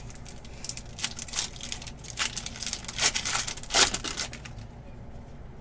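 Foil wrapper of a trading-card pack being torn open by hand: a run of crinkling and ripping for about four seconds, loudest about four seconds in.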